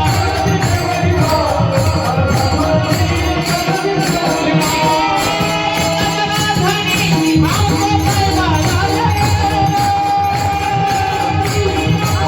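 Marathi devotional music: long held sung or melodic notes over a steady drum beat and continuous jingling percussion.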